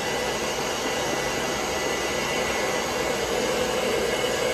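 Handheld hair dryer running steadily: a continuous rush of air with a faint steady whine in it.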